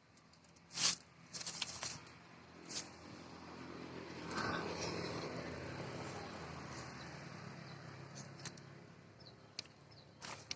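An engine running at a distance, with a low steady hum that swells about four seconds in and then slowly fades. A few sharp clicks come in the first three seconds.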